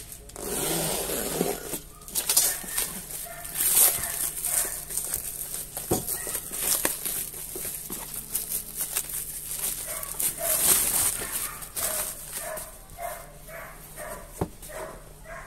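Plastic stretch wrap slit with a box cutter, then crinkled, torn and peeled off a cardboard box, with a few sharp knocks as the box is handled. An animal calls again and again in the background in the second half.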